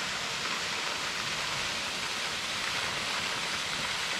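Steady, even rush of a roughly 60-foot waterfall pouring off an undercut sandstone ledge onto the rocks below.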